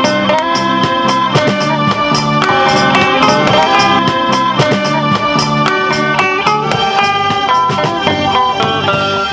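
A rock band playing live: electric guitar melody over electric bass, keyboard and a steady drum beat.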